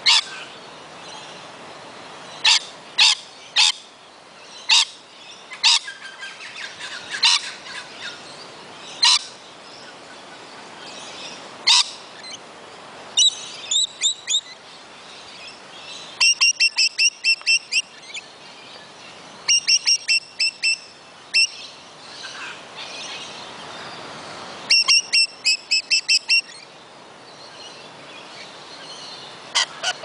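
Rainbow lorikeets calling: sharp single screeches every second or so for the first twelve seconds, then quick runs of short, shrill chattering notes in several bursts of one to two seconds.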